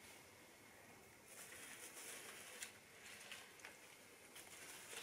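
Faint rustling and light crackles of a potted plant and its shipping packaging being handled, a little louder from about a second in.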